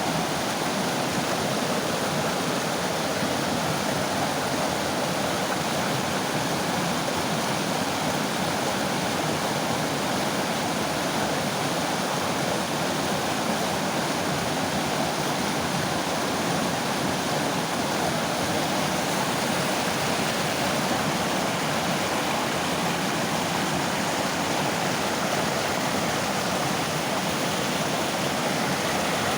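Mountain river flowing over rocks: a steady, unbroken rush of water.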